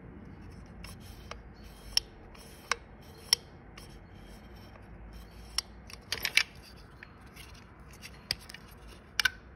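Hands handling the parts of a disassembled Audi 2.0T TFSI electric water pump: about a dozen irregular sharp clicks with light rubbing, including a quick cluster about six seconds in and a double click near the end.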